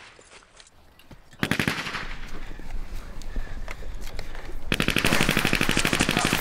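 Automatic machine-gun fire in long rapid bursts. After a short lull it starts about a second and a half in, and turns louder and denser about five seconds in.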